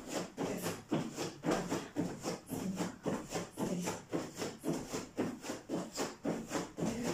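Bare feet landing on a padded exercise mat in repeated jumps, about two thumps a second in an even rhythm.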